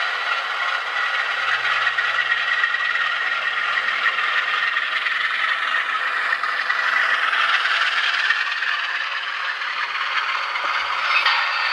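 A Graham Farish N gauge Class 47 model locomotive running with its DCC sound decoder playing a steady diesel engine sound through the model's small speaker. The sound grows brighter near the end as the model approaches.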